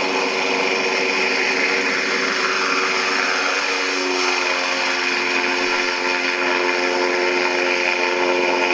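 Engine and propeller of a home-built propeller-driven ice cart, running steadily at speed on the ice. The pitch of the drone shifts about three and a half seconds in. Heard played back through a monitor's speaker.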